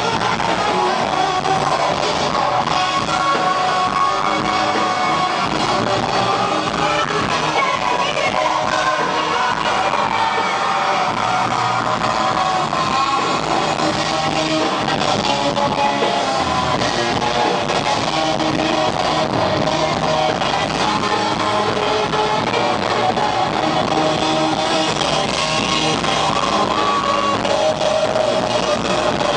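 A rock band playing live: electric guitar and drums with singing, steady and loud throughout.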